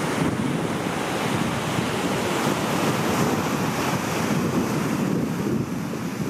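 Ocean surf washing and breaking over a rocky reef, a steady churning wash, with wind buffeting the microphone.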